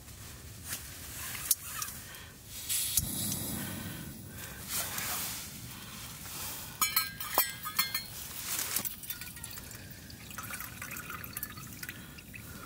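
Liquid pouring and dripping, with scattered light clicks and knocks and a quick run of clicks about seven seconds in.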